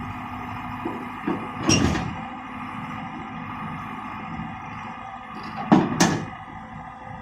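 Excavator diesel engines running steadily, broken by sharp metallic clanks: one clank about a second and a half in and a louder pair about six seconds in.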